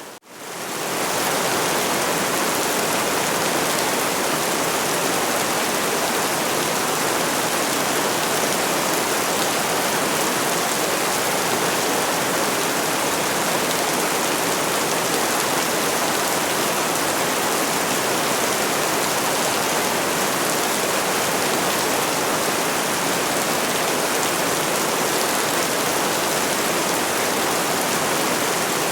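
Steady rain, an even hiss with no thunder, which drops away at the very start and fades back in over about a second.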